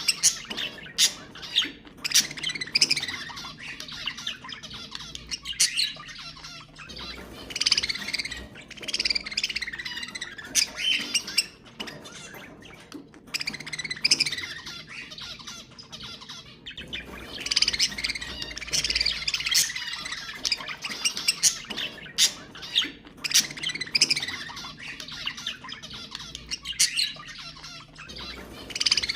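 Budgerigars chattering and warbling nonstop, a dense run of chirps with frequent sharp squawks.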